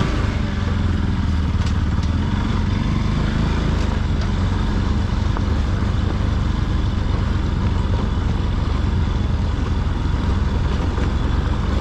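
Bajaj Pulsar NS200's single-cylinder engine running steadily while being ridden, with a continuous hiss of road and wind noise.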